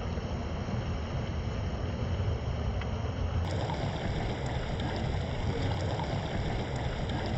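Muddy stream water rushing steadily over rocks.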